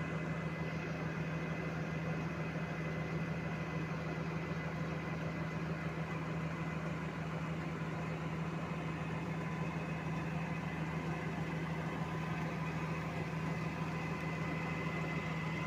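A crane's engine running steadily at a constant speed, a low drone with a thin steady whine above it.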